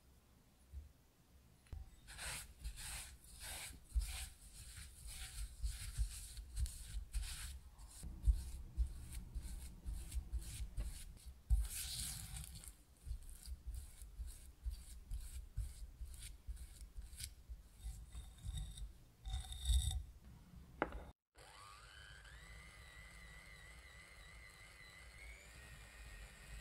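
A spatula scrapes and presses brown sugar into softened butter against a glass bowl, about two strokes a second. About 21 seconds in, an electric hand mixer starts with a rising whine and then runs steadily, creaming the butter and sugar.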